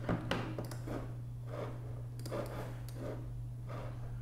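Computer mouse clicked a couple of times just after the start, then soft rubbing sounds as it is moved about, over a steady low electrical hum.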